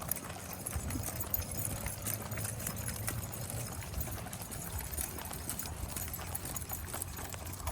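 Footsteps of a walker and a pack of dogs on the move: a steady patter of small clicks and steps over a low rumble.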